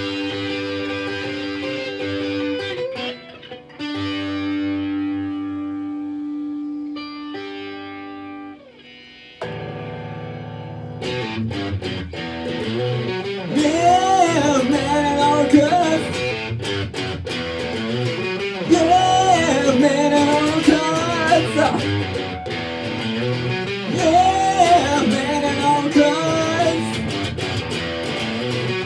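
Electric guitar played through an amplifier: chords left to ring for the first several seconds, then steady strumming. A man's singing voice comes in a little under halfway through and carries on in repeated phrases over the guitar.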